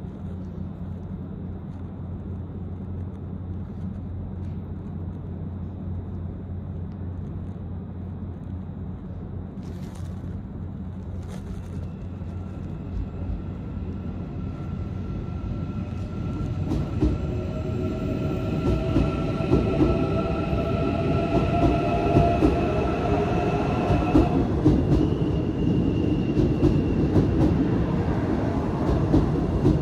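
Korail Seoul Subway Line 1 electric train passing through the station without stopping. A low rail rumble grows louder from about halfway through, with a high steady whine on top. Over the last few seconds the cars run past and the wheels clack over the rail joints.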